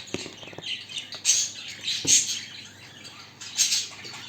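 Pet budgerigars chirping in short high bursts, three or four times, with a few light knocks between them.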